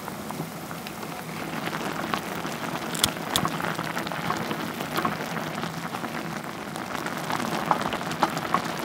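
Spicy instant-ramen broth with king crab legs boiling hard in a pot on a portable gas burner: a steady dense bubbling crackle. There are a couple of sharp clicks about three seconds in.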